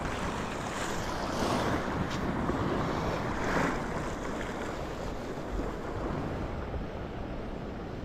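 Sea waves washing on the shore, with wind on the microphone. The wash swells twice in the first few seconds, then eases.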